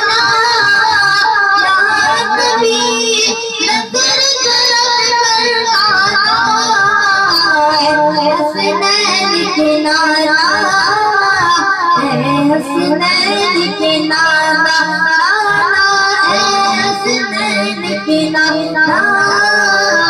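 A boy's voice reciting a naat through a microphone: devotional Urdu singing without instruments, with long sliding, ornamented notes that run on without a break.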